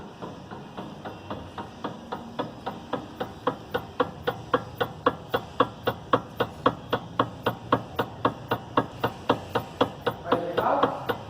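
Front suspension of a 2011 Hyundai i30 knocking over and over as the car body is worked up and down, about three or four clunks a second, growing louder a few seconds in. The knocking comes from worn stabilizer bar end links, which the mechanics find right after on the lift.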